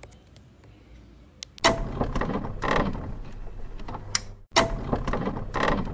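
End-card sound effect with a mechanical, clattering character, played twice: each time it starts with a sharp hit and runs about three seconds, the first starting under two seconds in and the second about three seconds later.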